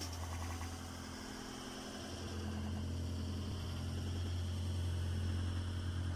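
A steady low hum that drones on without a break, with fainter higher tones above it.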